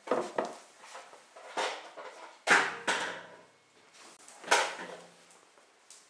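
Young puppies making short noises: a few sudden sounds with gaps between them, the loudest about two and a half and four and a half seconds in.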